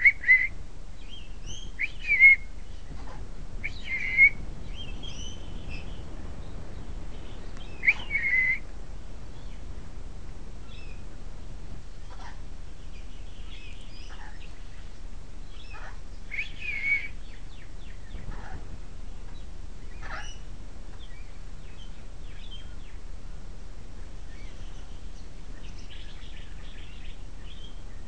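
Parrot calling: about five loud, short, high-pitched calls in the first half, with fainter chirps and clicks between them, over a steady low background hum.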